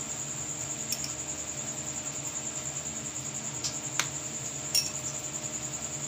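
A steel spoon clinking lightly against a glass mug a few times while soaked basil seeds are spooned in, the sharpest clink about four seconds in and another just before five. A steady, high, pulsing chirring runs underneath.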